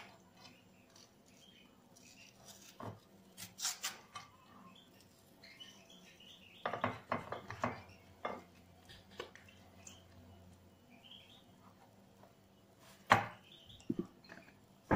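Cardboard milk carton being peeled off a block of set cheese on a plate: scattered rustles, taps and knocks, with a cluster of them about seven seconds in and one sharp knock near the end.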